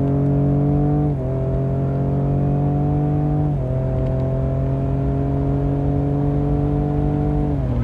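Twin-turbo 3.5 L EcoBoost V6 of a 2019 Ford Raptor fitted with Garrett PowerMax turbos, heard from inside the cab at full throttle on a quarter-mile pull. The engine note climbs steadily and steps down at each upshift of the 10-speed automatic, about a second in and again about three and a half seconds in. It falls away near the end as the run finishes.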